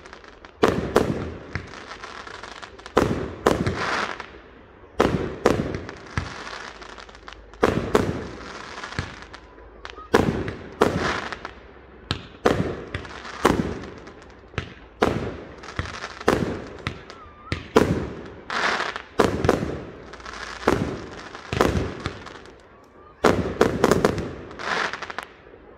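Fireworks display: a steady barrage of aerial shells bursting as sharp bangs, about one a second and often in close pairs, each trailing off in an echo.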